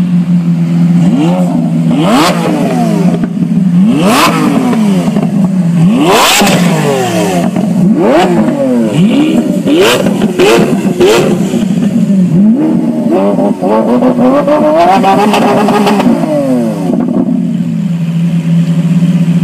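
Lamborghini Aventador's V12 idling and blipped again and again, a dozen or so quick revs whose pitch shoots up and falls back, several with sharp cracks at the top and one longer held rev near the end of the run. It settles back to a steady idle for the last couple of seconds.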